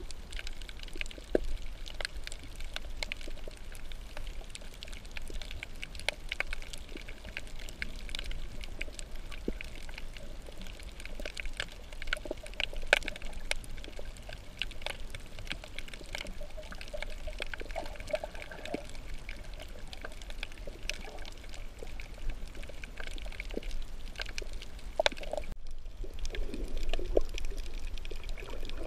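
Sea water sloshing and gurgling around a snorkeler's camera, with a steady scatter of small crackling clicks.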